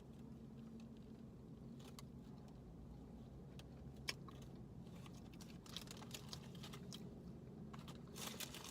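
Quiet eating and food-handling noises: faint, scattered clicks and soft crinkles from a sausage McMuffin, its wrapper and jelly packets, over a low steady hum, with a short burst of rustling near the end.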